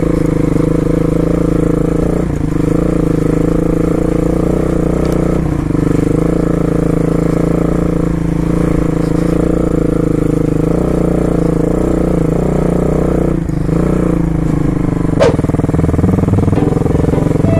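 Dirt bike engine running steadily at low speed, with a brief drop in the engine note every few seconds as the throttle is eased. A single sharp knock near the end.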